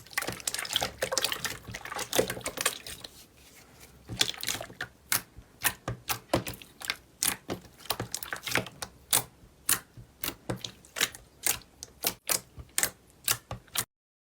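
Slime being squeezed and pressed by hand: dense wet crackling for the first few seconds, then a run of sharp clicking pops, two or three a second, that cuts off suddenly near the end.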